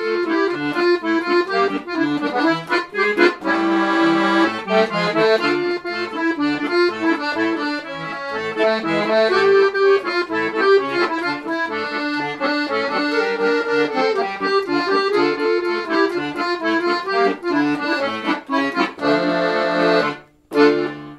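Accordion playing a lively tune over chords. It breaks off a little after twenty seconds in, then sounds one short final chord that dies away.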